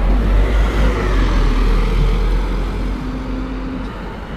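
Scania OmniCity double-decker bus's diesel engine accelerating as the bus pulls away from the stop. The low rumble is loud at first and fades as the bus drives off.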